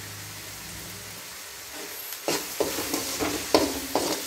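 Onion-tomato tempering sizzling in a metal kadai. About two seconds in, a long steel spoon starts stirring it, scraping and knocking against the pan about three times a second.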